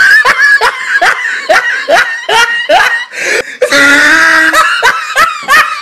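Loud human laughter: a run of short, rising 'ha' syllables, about three a second, with a longer held stretch about two-thirds of the way through.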